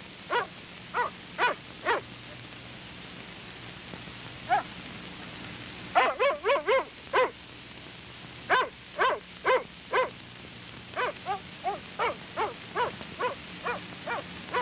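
A dog barking repeatedly: short, single barks at first, then quick runs of several barks about six seconds in and again from about eight seconds on, over a faint steady hum.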